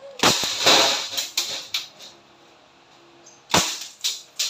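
Crosman P10C CO2-powered 4.5 mm steel-BB pistol firing several shots in quick succession, with glass bottles shattering under the hits. A pause of about a second and a half, then another quick string of shots near the end.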